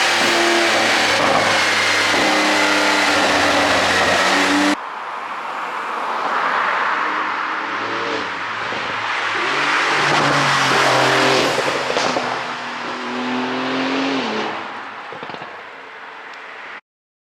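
2021 Porsche 911 Turbo S (992) twin-turbo flat-six with an ECU pop-sound tune, running loud with the revs stepping and gliding. The sound cuts off abruptly about five seconds in and resumes quieter, the revs rising and falling with some ragged crackling as they drop. It fades and stops suddenly near the end.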